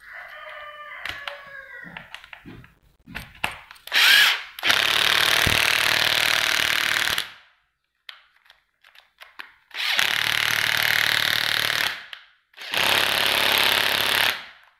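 Makita cordless impact tool being run in short trigger pulls. First comes a faint motor whine that rises and falls for about two seconds. Then there are three loud runs of roughly three, two and two seconds, with a rattling hammering texture and brief pauses between them.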